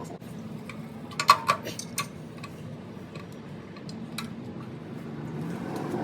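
Small metal parts and hand tools clinking during hand assembly of a small engine: a quick cluster of sharp clinks about a second in, the loudest near the start of it, then a few fainter ticks.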